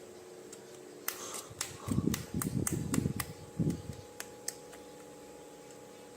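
Plastic toys and packaging being handled: a run of light clicks and taps with soft rustling bumps, from about a second in to near the middle, over a faint steady hum.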